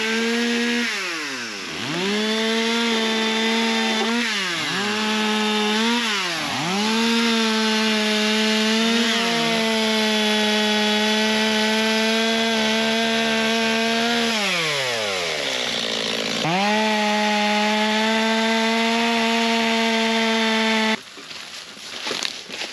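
Chainsaw running at high revs, sawing up a long, thin downed pine. Its revs drop and climb back several times. The engine sound falls away about twenty-one seconds in.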